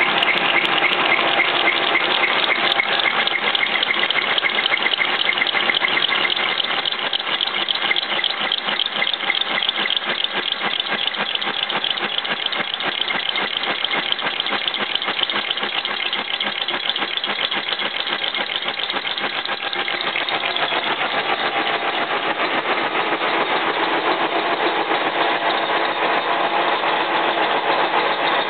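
Horizontal boring machine's carbide-insert cutting tool boring hard welded half-steel, half-cast-iron at 200 RPM, making a steady, fast rattle that shifts slightly in tone about twenty seconds in. The chilled, hardened weld material makes ugly sounds and breaks inserts.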